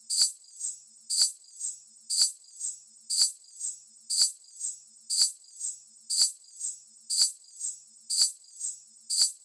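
Small metal jingles shaken in a steady rhythm, a strong shake about once a second with a lighter one between.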